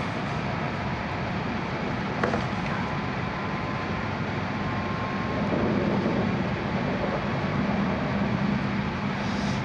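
Cabin noise of an E6 series shinkansen car on the move: a steady rush with a low hum underneath. There is one sharp click about two seconds in, and the noise grows a little louder about halfway through.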